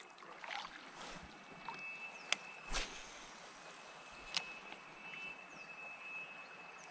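Quiet river ambience heard from a drifting kayak: a faint steady hiss with a faint high tone throughout. Three light knocks come about two, three and four and a half seconds in.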